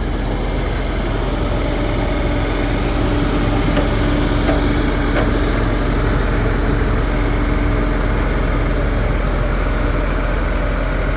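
Heavy truck engine running steadily at a concrete pour, a constant low rumble with a steady hum over it for most of the time and a few faint ticks.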